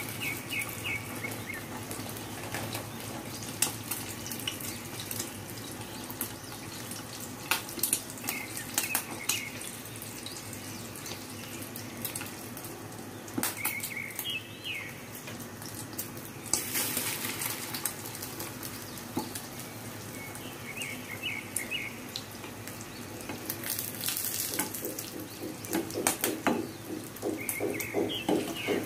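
Bread slices dipped in beaten egg frying in hot oil in a pan: a steady sizzle with scattered crackles and pops. In the last few seconds a metal spatula works in the pan.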